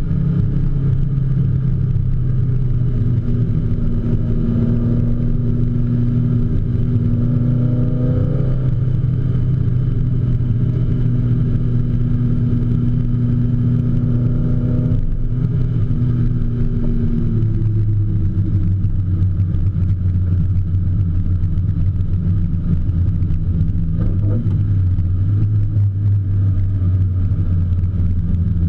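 BMW E30 M3's engine heard from inside the cabin, running hard at sustained high revs on track. The pitch holds steady, then steps down about two-thirds of the way through and carries on at the lower note.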